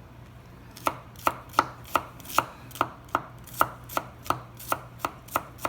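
Knife chopping garlic finely on a cutting board: a steady run of sharp knocks, about three a second, starting about a second in.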